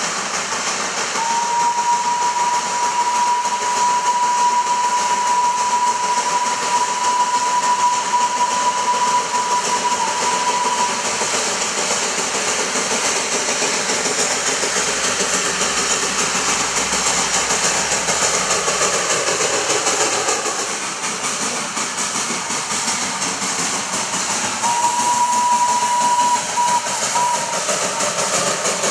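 Darjeeling Himalayan Railway narrow-gauge steam locomotive blowing its whistle: one long steady blast of about ten seconds, then a shorter, broken blast near the end, over a steady hiss as the train approaches.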